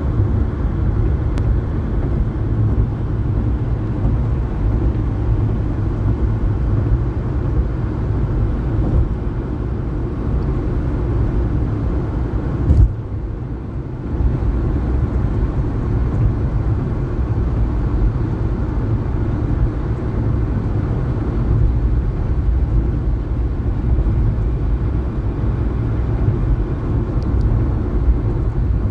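Steady low rumble of road and tyre noise inside a car's cabin while driving on a highway. A single sharp knock comes about thirteen seconds in, followed by a brief lull of a second or so.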